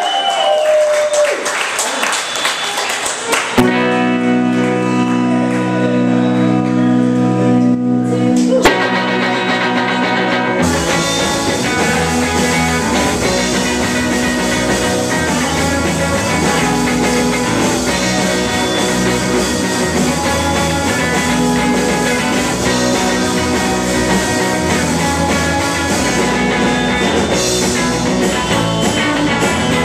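Live indie rock band starting a song: after a few seconds of room chatter a sustained chord rings for about five seconds. Then, about ten seconds in, the full band comes in with electric bass and drum kit and plays on steadily.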